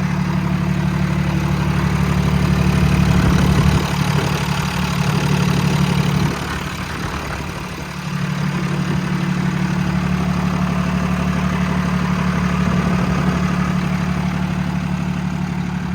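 Paccar PX9 8.9-litre inline-six diesel engine idling steadily, a low even hum that dips briefly about six seconds in.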